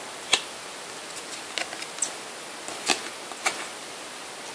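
Paper trading cards being handled and flicked from one to the next: a few short, sharp card clicks over a steady faint hiss, the clearest about a third of a second in and twice near the three-second mark.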